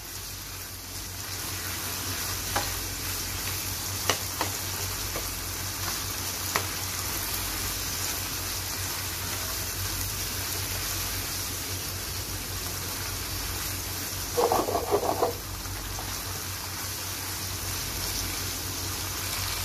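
Beef and yogurt masala sizzling and frying over a high flame in a non-stick karahi, stirred and scraped with a metal spatula, with a few light taps of the spatula on the pan; the yogurt's water is being cooked off. A brief, louder pitched scrape about three-quarters of the way through.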